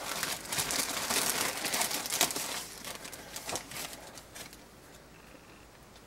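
Clear plastic bag crinkling as hands handle a bagged bundle of wool fiber, busy at first and dying away after about three seconds.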